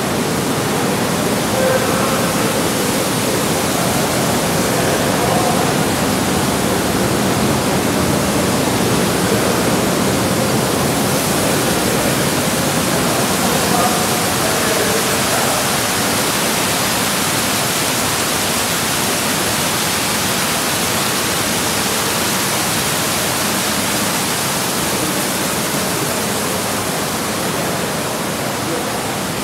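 Water pouring from spouts and jets into tiled hammam bathing pools: a steady rushing splash.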